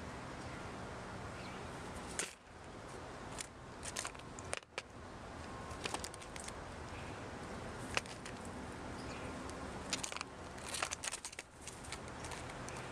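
Blue jay pecking and picking at sunflower seeds and peanuts in a feeder dish: sharp, irregular clicks and cracks from about two seconds in, over a steady background hiss.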